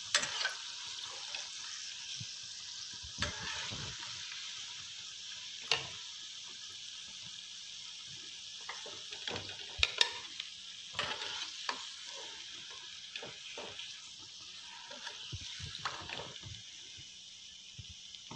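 Doughnuts deep-frying in hot oil: a steady high sizzle, with a metal spatula clicking and scraping against the pan every few seconds as the doughnuts are turned and lifted out.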